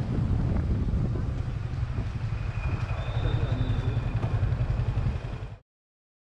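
Motorcycle engine running while riding, with wind rumbling on the helmet-mounted microphone. A faint, steady high tone sounds from about two and a half seconds in, and then all sound cuts off abruptly near the end.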